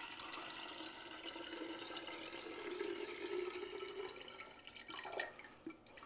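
Cold brew coffee concentrate pouring in a steady stream from a Takeya cold brew maker into a glass pitcher. The pour rises a little in pitch and tails off about five seconds in.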